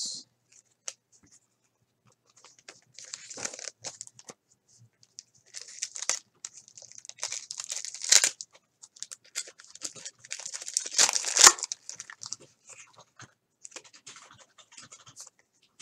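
Silvery foil card-pack wrapper crinkling and tearing as it is ripped open by hand, in several bursts of rustle, loudest a little past the middle. Softer rustling of cards being flipped through follows near the end.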